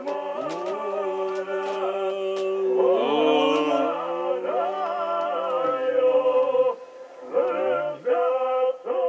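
Unaccompanied singing by several voices in long held notes that waver at the ends of phrases, with a short break about seven seconds in.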